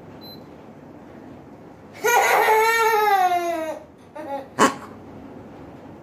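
A child's voice in a long wail lasting nearly two seconds, sliding down in pitch, followed by a short sharp click.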